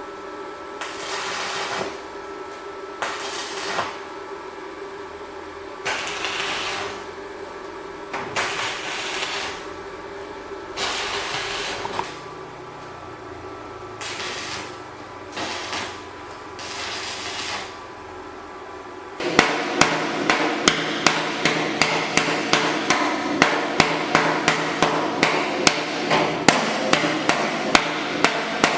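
Short noisy strokes every couple of seconds over a steady hum, then, about two-thirds of the way in, a fast run of sharp taps, about four or five a second.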